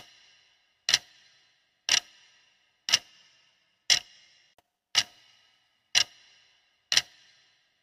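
Countdown timer sound effect: a clock-like tick about once a second, each with a brief ringing tail.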